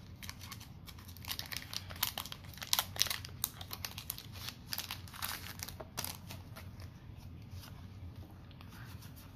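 Foil wrapper of a Pokémon TCG booster pack crinkling and tearing as it is opened by hand, a quick run of sharp crackles that thins out after about six seconds.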